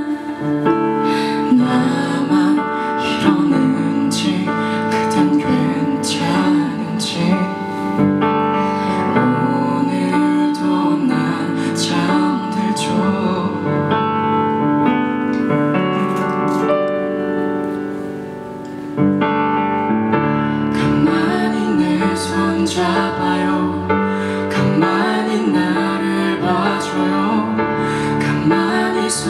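Live acoustic pop music: a stage keyboard played with a piano sound over an acoustic guitar, with no clear lyrics. The music thins out briefly about two thirds of the way through, then comes back in fully.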